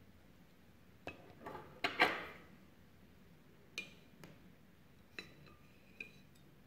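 Metal cake server clinking and scraping against a ceramic plate as a cake slice is set down. A quick run of clinks comes about one to two seconds in, the loudest with a short ring, followed by four lighter clinks spread over the rest.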